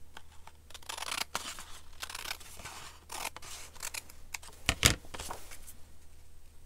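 Scissors snipping through paper in a run of short, crisp cuts, with paper rustling between them. A sharp knock about five seconds in is the loudest sound.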